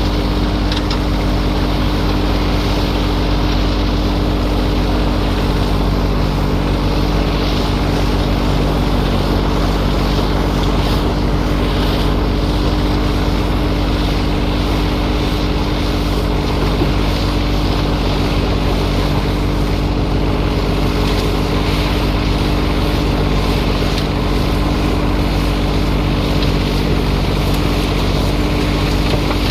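A motor running steadily with a constant low hum and no change in speed.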